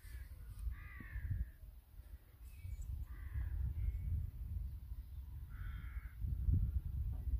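Three harsh cawing bird calls, about two seconds apart, over a steady low rumble of wind on the microphone.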